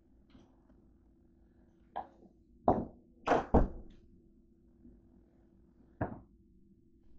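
A door being handled and opened, with keys hanging in its lock: five sharp knocks and thunks, the loudest three close together about three seconds in.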